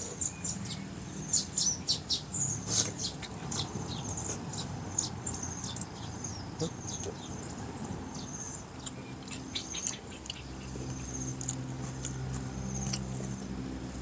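Close-up mouth sounds of a man chewing tough, chewy grouper skin: wet smacks and clicks, busiest in the first few seconds, with high-pitched chirping throughout.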